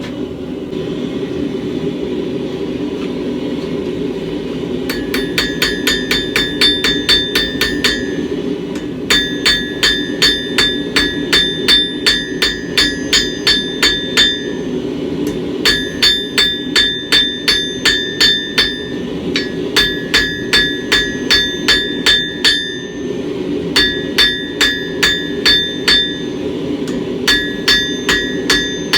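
Hand hammer striking a hot steel bar on an anvil, squaring off the middle of the bar: runs of quick blows about three a second, each one ringing, with short pauses between the runs. A steady low rushing noise runs underneath, and the first few seconds hold only that before the hammering starts.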